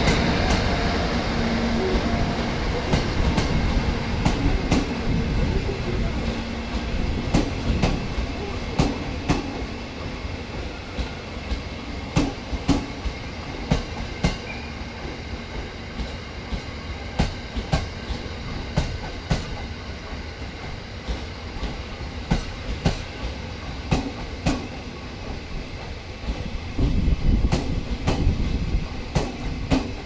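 E217-series commuter cars being towed past, unpowered, their wheels clicking over rail joints, mostly in pairs, over a steady rolling rumble.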